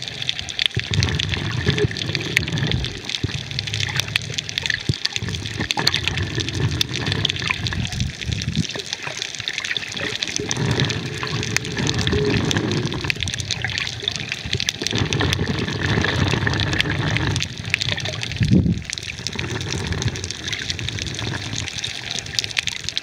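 Underwater sound of water moving and gurgling around the camera, coming in low swells every few seconds over a steady fine crackling.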